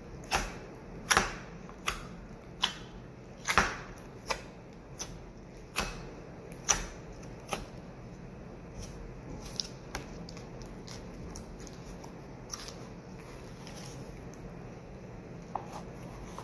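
Slime being stretched and squeezed by hand, giving sharp, irregular clicking pops. There are about ten in the first eight seconds, then they grow fewer and fainter.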